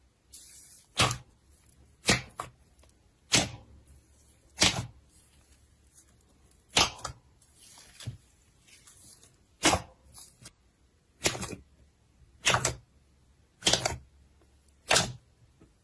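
Slime being pressed and popped: about a dozen sharp, separate pops, roughly one every second or so.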